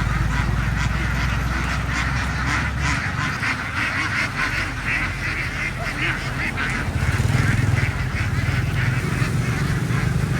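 A large flock of ducks quacking together, many short calls overlapping and thickest in the middle, over a steady low hum.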